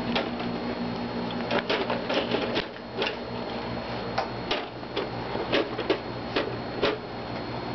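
Plastic toy parts of a Barbie Dreamhouse clicking and clacking as a child handles them. The clicks and knocks come irregularly, about a dozen sharp ones in all.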